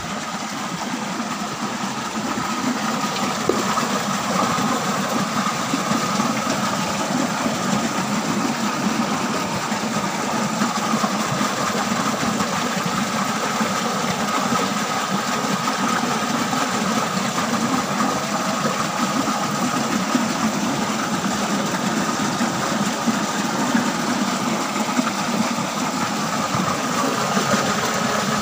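Steady rushing, splashing noise of water pouring into a concrete fish pond from an inflow, with a constant mechanical hum under it like a small motor running. It grows a little louder over the first few seconds, then holds level.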